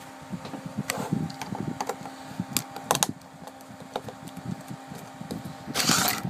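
An electric fan running with a steady hum, under scattered clicks and knocks from a plastic three-pin mains plug and a screwdriver being handled on a table, with a short scraping rustle near the end.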